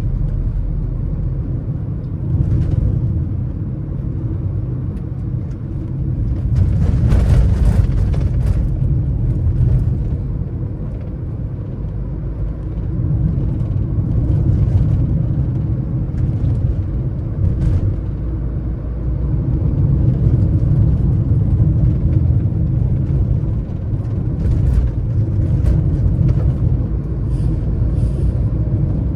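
A car driving along, a steady low rumble of tyres and engine, swelling briefly louder with a hiss about seven seconds in.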